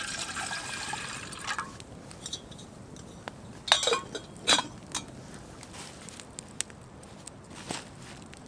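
Liquid pouring into a container for about a second and a half, then a few scattered clinks and knocks.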